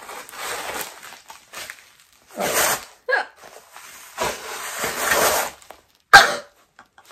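Black faux leather leggings rustling and crinkling as they are unfolded and shaken out, in several bursts. A short, loud vocal burst comes about six seconds in.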